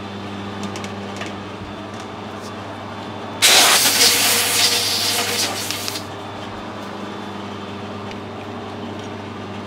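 Metal lathe running with a steady hum. About three and a half seconds in, a compressed-air blow gun hisses for about two and a half seconds, blowing swarf out of the freshly tapped aluminium bush.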